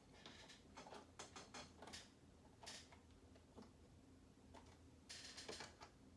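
Faint, irregular clicks and clatter of Lego plastic bricks being handled and pressed together, with a denser burst of clicking about five seconds in.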